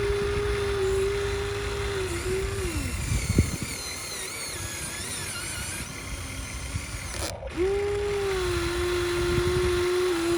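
Radio-controlled model excavator's electric motor whining at a steady pitch. It winds down about three seconds in and starts up again near the end.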